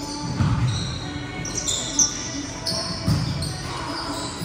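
Volleyball rally on an indoor court: the ball is struck with dull thumps, the sharpest about two seconds in and others about half a second and three seconds in. Sneakers squeak on the gym floor.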